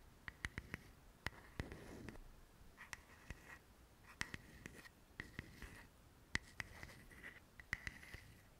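Quiet tapping and scratching on small objects: sharp clicks mixed with short, scratchy strokes, several a second, at an uneven pace.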